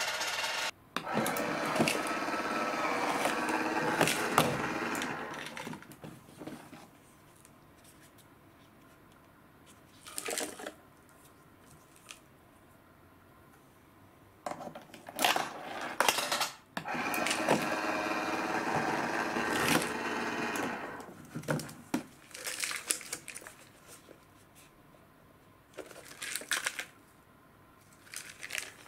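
Personal Cup Noodle vending machine running its dispensing motor twice after its button is pressed, a steady whir of about four seconds each time. Short clicks and knocks of a coin going into the slot and the button being pressed come between the two runs, and cups are handled near the end.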